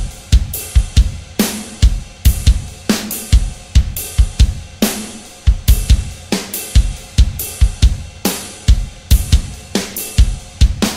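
Music: a drum kit playing a steady rock beat, with bass drum, snare and cymbals striking in a regular pattern.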